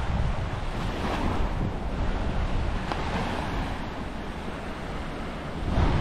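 Waves washing onto the beach, the surf hiss swelling twice, with wind rumbling on the microphone.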